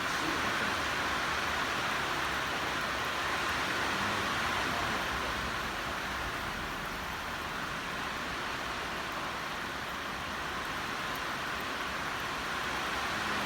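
Heavy rain pouring down as a steady, even hiss.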